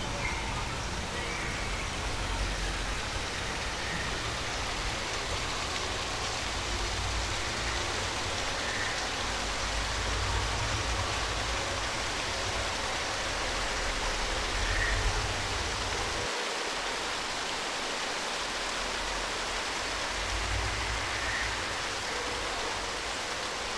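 Steady rushing of falling water, with a few faint short chirps now and then.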